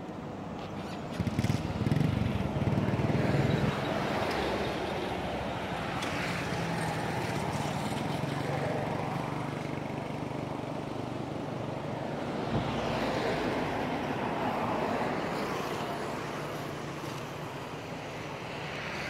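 Motor traffic going by: a continuous noise of vehicles that swells and fades as they pass, loudest a couple of seconds in and again past the middle.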